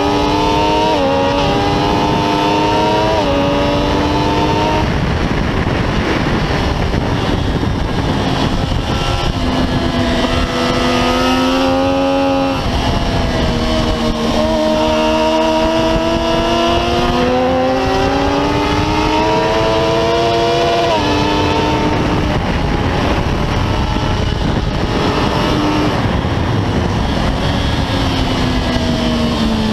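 Triumph Daytona 675R's inline-three engine at racing speed, pitch climbing and stepping down with quick upshifts three or four times in the first five seconds. It pulls hard again from about ten seconds in and again from about fourteen seconds in, with more upshifts. Heavy wind rush runs under it.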